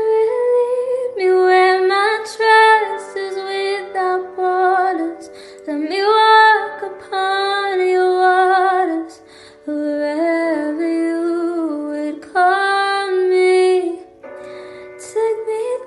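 A woman's voice singing a slow, tender melody in several phrases, with vibrato and quick vocal runs, over soft held backing notes.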